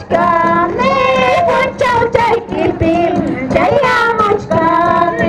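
A high-pitched voice singing a Santiago festival song, one voice gliding up and down between notes in short phrases.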